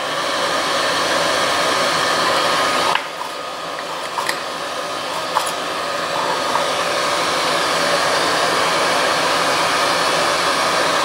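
Solder fume extractor fan running with a steady whoosh, with a few light clicks and taps from work at the bench partway through.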